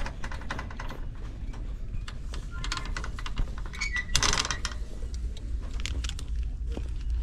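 Scattered clicks and rattles of plastic clothes hangers on store racks and of a shopping cart being pushed, over a low steady rumble, with a louder rustling burst about four seconds in.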